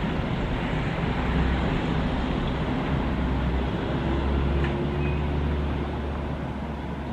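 Steady road traffic noise with a low rumble as cars drive across the level crossing after the barriers lift, easing slightly near the end.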